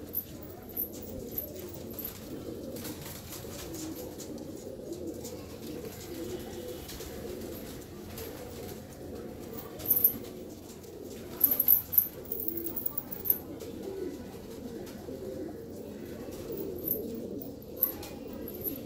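Fancy pigeons cooing, low coos running on with little break. A few sharp clicks or taps stand out about ten to thirteen seconds in.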